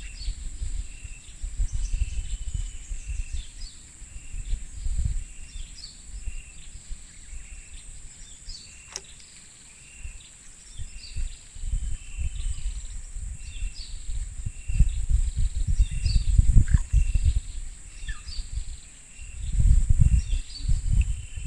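Forest ambience by a creek: a steady high insect drone with short chirps repeating about once a second. Just before nine seconds in there is a quick swish as a fishing rod is cast, and low rumbles come and go, heaviest near the end.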